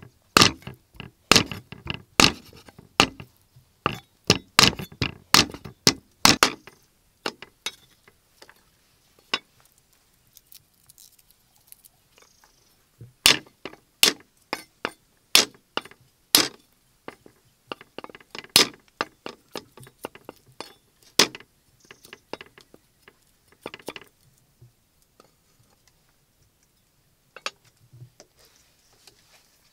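Cleaver chopping on a thick wooden chopping block: a fast run of sharp chops through raw pork for about six seconds, then after a pause a second run of slower, spaced chops as garlic is cut, and a few lighter knocks near the end.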